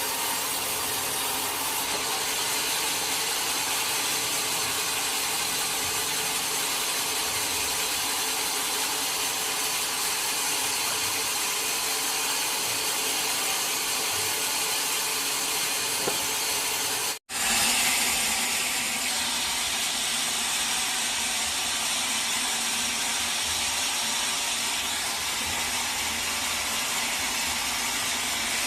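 Sawmill saw running steadily, a constant mechanical noise with a hum of steady tones. The sound drops out for an instant about two-thirds of the way through and resumes a little brighter.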